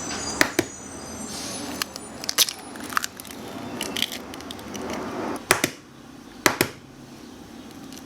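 Eggs being cracked for batter: sharp taps and cracks of eggshell against a bowl, several spread through, the loudest about five and a half and six and a half seconds in.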